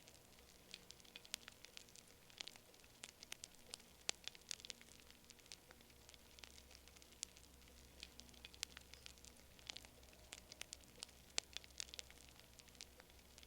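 Wood fire crackling: irregular sharp pops and snaps, several a second, over a faint low rumble.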